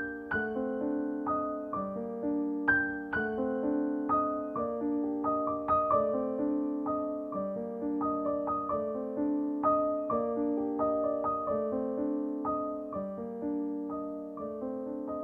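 Background piano music: a gentle melody of single notes over repeated chords at a slow, even pace.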